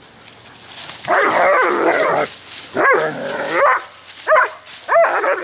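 Two dogs play-wrestling, a Rough Collie and an Airedale Terrier puppy: a long rough growl, then four short, sharp barks.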